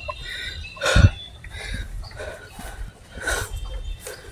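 A person breathing hard close to the microphone, a breath about every three-quarters of a second, with wind rumbling on the mic and a thump about a second in.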